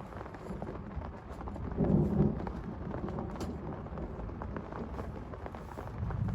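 Heavy rain with many single drops striking close by, under a low thunder rumble that swells and is loudest about two seconds in.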